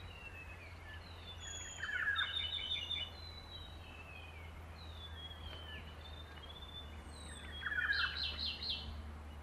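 Forest ambience of several birds calling: thin descending whistles throughout, with two louder bursts of rapid chirping trills, about two seconds in and near the end, over a low steady hum.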